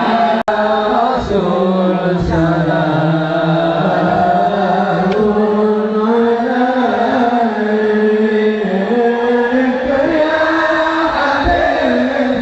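Melismatic singing of an Islamic devotional chant (sholawat), with long wavering held notes. A brief dropout about half a second in.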